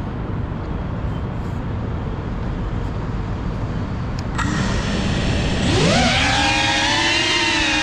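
A steady low rumble of outdoor noise, then a faint steady whine as the FPV quadcopter's motors arm about four and a half seconds in. Just after five and a half seconds the brushless motors spin up in a sharply rising whine and settle into a louder steady multi-tone whine as the throttle comes up for takeoff.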